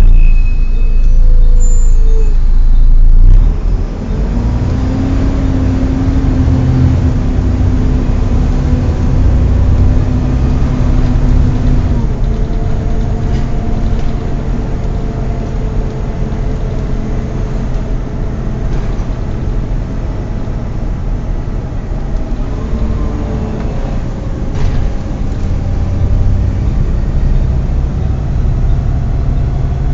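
Volvo B7TL double-decker bus running, with a steady low engine rumble that is loudest for the first few seconds. Over it runs a hoover-like whine from the bus's cooling fan, changing pitch and fading in and out.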